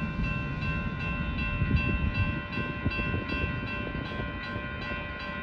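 Railroad grade-crossing bell ringing in a quick, even rhythm, about two to three strokes a second, over the low rumble of a freight train of covered grain hopper cars rolling away, the rumble slowly fading.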